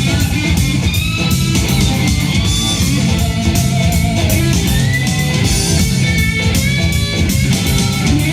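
Rock music with electric guitar and drums playing back from a cassette on a Sony TC-K61 deck.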